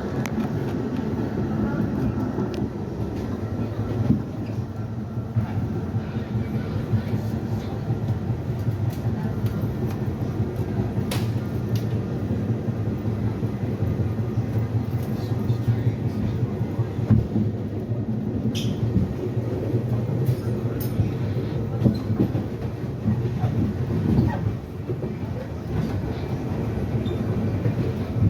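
R68A subway car running between stations, heard from inside: a steady rumble of wheels on rail under the howl of its traction motors, with scattered clacks from rail joints. A brief high wheel squeal about two-thirds of the way through.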